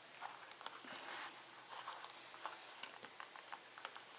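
Faint, scattered small clicks and light scraping as fingers pry a SanDisk Sansa Clip MP3 player's circuit board out of its plastic case, working against the plastic clips that hold it in.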